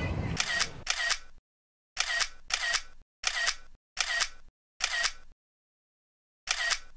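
Camera shutter click sound effect, repeated about eight times at uneven spacing, each a sharp click that fades quickly, with total silence in between.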